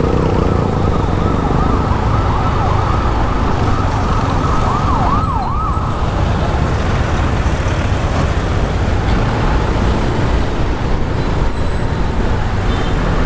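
Wind and road rumble on a Honda Genio scooter riding in city traffic, with a siren sweeping rapidly up and down in the first half that stops about six seconds in.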